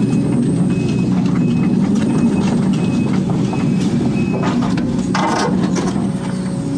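Case CX250D excavator's diesel engine and hydraulics working steadily while it digs, heard from inside the cab. A brief rush of noise about five seconds in.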